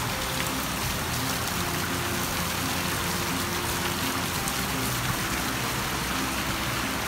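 Water splashing steadily from garden fountains: rows of small water jets and a stone bowl fountain.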